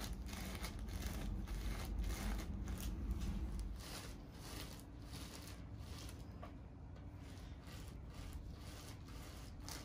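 Gloved hands working wet hair dye through curly hair bundles on a plastic sheet: irregular rubbing, squishing and rustling strokes, busier and louder in the first few seconds.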